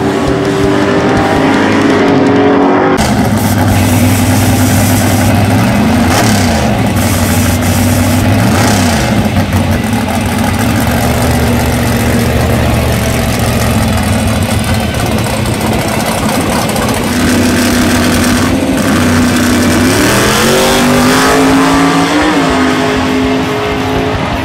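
Drag race cars' engines running loudly, more than one at once, at times revving. Near the end an engine revs up, rising in pitch.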